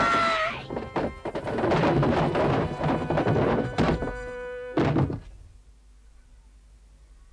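Cartoon sound effects over background music: a run of thunks and knocks that ends with one last thud about five seconds in, after which the sound drops away.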